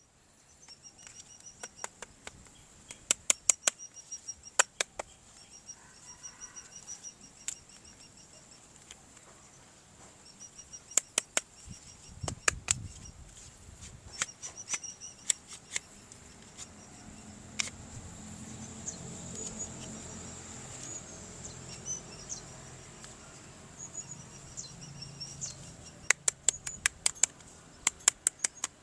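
Sharp plastic clicks and taps in quick clusters, with pauses between, from plastic toy parts and packaging being handled and snapped during an unboxing. A faint steady hiss and a soft low rumble sit underneath.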